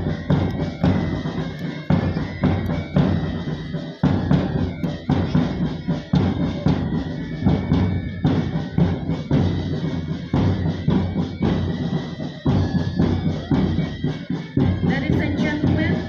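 March music played by a band with drums, a steady bass-drum beat keeping time for troops marching in step.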